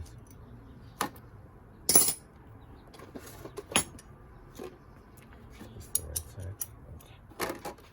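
Metal hand tools clinking and clicking against metal parts as they are handled, a scatter of separate sharp clinks with the loudest about two seconds in.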